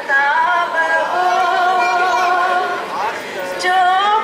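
A woman singing an old Hindi song solo, unaccompanied, holding long steady notes and gliding between them, with a brief breath and a rising slide about three seconds in.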